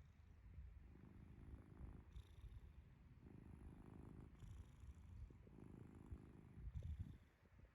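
Domestic cat snoring in its sleep, faint: low snores alternating with a soft hiss, in an even breathing rhythm of about one breath every two seconds.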